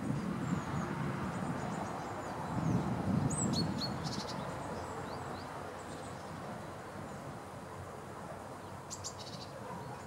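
Scattered thin, high chirps and short calls of small songbirds, with small bursts about three and a half seconds in and again near the end, over a steady low background rumble.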